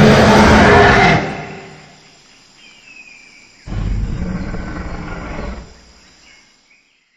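Animated dinosaur's roar sound effect. A loud roar dies away over the first second or two, and a second, deeper growling roar comes in about four seconds in and lasts about two seconds.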